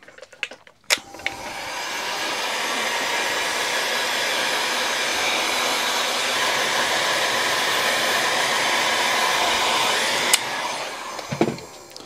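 Handheld heat gun clicks on about a second in and blows steadily, shrinking heat-shrink tubing over a soldered cable joint. Near the end it clicks off and the airflow dies away.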